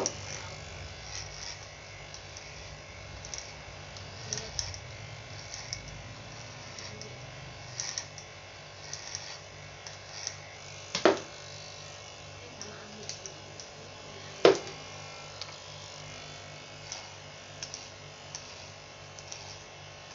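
Electric hair clippers running with a steady buzz as they are drawn over a head in a buzz cut, with small ticks throughout. Two sharp knocks stand out about three and a half seconds apart, a little past the middle.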